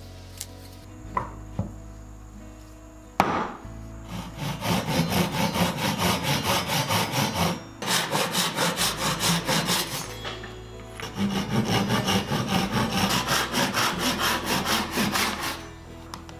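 Handsaw cutting through a small hardwood block held in a wooden handscrew clamp: quick back-and-forth strokes, about three a second, in three runs with short pauses between them. A sharp knock comes about three seconds in, just before the sawing starts.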